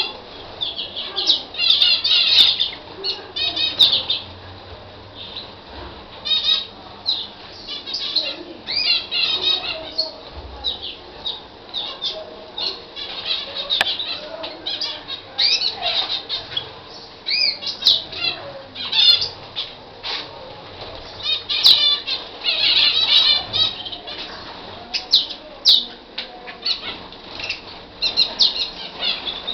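Canary singing: fast trills and rolling phrases in bursts of a second or two, with short pauses between them.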